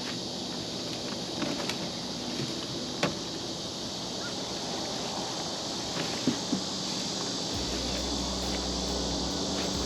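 Outdoor ambience: a steady insect drone with a few faint clicks, and a low steady hum that comes in about three-quarters of the way through.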